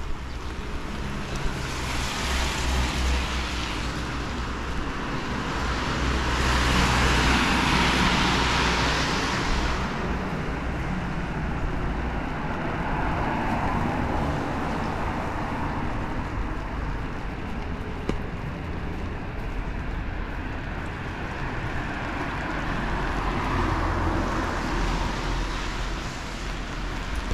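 Cars passing on a rain-wet city street, their tyres hissing in swells that rise and fade, two strong ones early on and a weaker one near the end, over a steady low traffic rumble.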